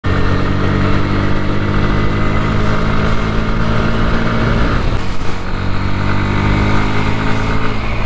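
Single-cylinder engine of a Bajaj Pulsar NS motorcycle running steadily under way, heard from the rider's seat. The engine note briefly breaks up about five seconds in, then carries on.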